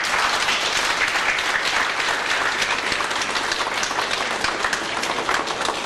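A group of people applauding, with steady hand clapping.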